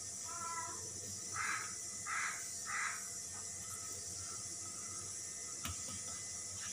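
Oiled hands smearing oil over a thin, stretched sheet of parotta dough: three soft swishes, one at about each second in the first half. A short animal call comes just before them, near the start.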